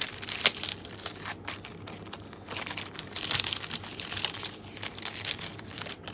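Plastic wrapping on sticker and photo sets crinkling as it is pulled open by hand, a continuous crackly rustle with louder spells about half a second in and around three seconds in.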